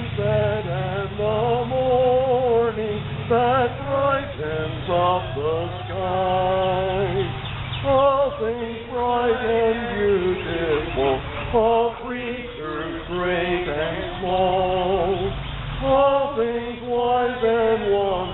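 A small group of people singing a hymn together outdoors, a slow melody of held notes.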